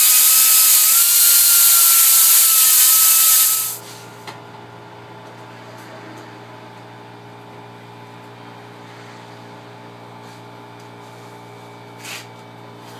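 A power tool running hard against the steel wheel hub at the stripped-stud repair, a loud hiss with a steady whine for about four seconds before it stops. A steady low hum follows.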